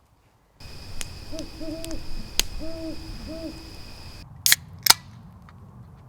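An owl hooting, a short run of about four hoots over a low rumble, followed about a second later by two sharp cracks close together, the loudest sounds here.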